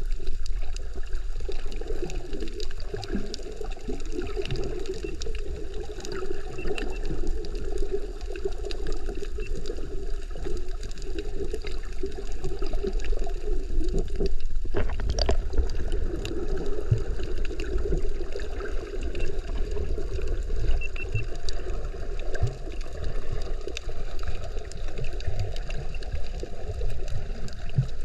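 Water gurgling and sloshing around a snorkeler's camera, muffled, over a steady low rumble and many faint clicks. A louder rush comes about halfway through.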